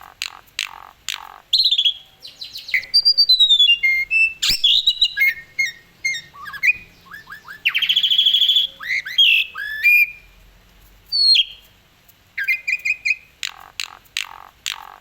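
Asian pied starling (jalak suren) singing a long, varied song of clear whistles, quick chirps, sliding notes and harsh squawky notes, with short pauses between phrases.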